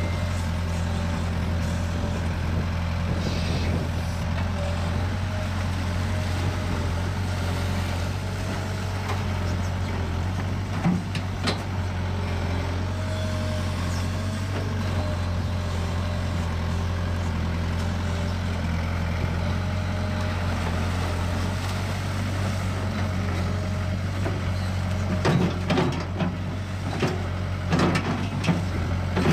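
Kobelco SK60-1 crawler excavator's diesel engine running steadily, a low hum with a thin wavering whine above it. There is a sharp click about eleven seconds in, and a run of knocks and clanks near the end.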